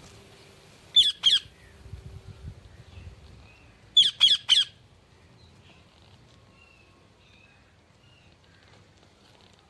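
A parrot screeching in short, sharp squawks: two in quick succession about a second in, then three in a fast run about four seconds in. Faint high chirps follow in the background.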